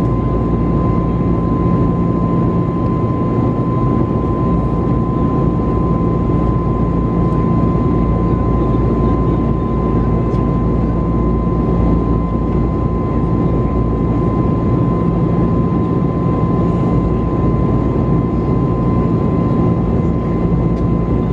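Steady cabin roar inside an Airbus A321neo in flight, made by its CFM LEAP-1A turbofan engines and the airflow, with a steady high hum running through it.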